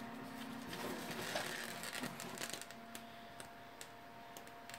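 Corsair ML140 Pro 140 mm PC fan running at full speed: a faint, steady whir with a low hum. A phone is handled next to it, with rustling about a second in and a few sharp clicks near the end.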